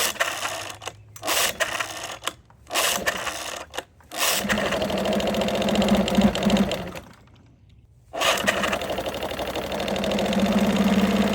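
Old OMC 6 hp two-stroke outboard being pull-started: several short pulls with brief firing, then it catches about four seconds in and runs with a fast, buzzy note, dies out around seven seconds, and is restarted about a second later to run steadily again. It runs without pumping any cooling water, a sign of a failed water pump impeller.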